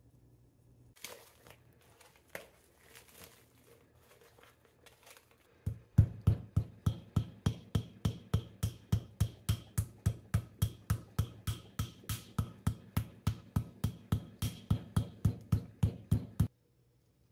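Raw pork belly pounded on a wooden cutting board to tenderize it: steady, even strikes about three a second that start about six seconds in and stop abruptly. Before them come a few scattered, faint handling noises.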